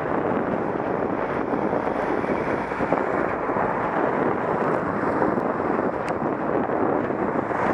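Steady rushing wind noise on a head-mounted camera's microphone while cycling along a road, with no distinct events.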